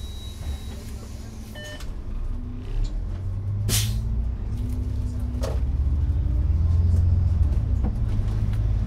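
Inside an Iveco Urbanway 12 GNV natural-gas city bus pulling away: the engine and drivetrain rumble grows louder, with a tone rising in pitch as it gathers speed. A short electronic beep sounds near two seconds in, a sharp hiss of air about four seconds in, and a shorter hiss about a second and a half later.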